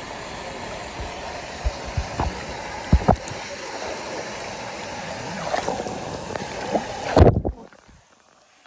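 Swimming-pool water sloshing and splashing right at the microphone, with several sharp splashes, the loudest a little after seven seconds in. The sound then suddenly drops to a dull, quiet murmur near the end.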